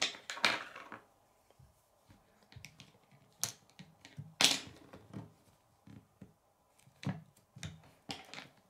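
Plastic K'nex pieces clicking and snapping as wing parts are pushed onto the connectors: an irregular run of sharp clicks with short handling rustles, the loudest click about four and a half seconds in.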